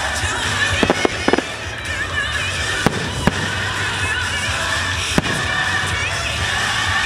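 Fireworks shells bursting in sharp bangs, three close together about a second in and single ones around three and five seconds in, over loud show music played for the display.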